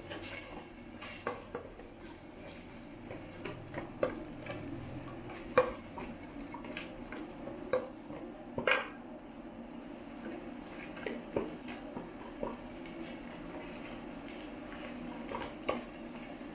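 A utensil clinking and knocking against a cooking pot as food is stirred, in scattered strokes with two louder knocks in the middle, over a steady low background.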